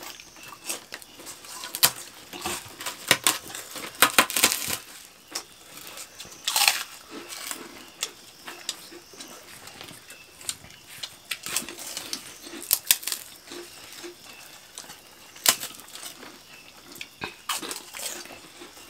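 People eating by hand from a banana leaf: irregular chewing and lip smacks, with sharp little clicks and the crinkle of fingers working the leaf.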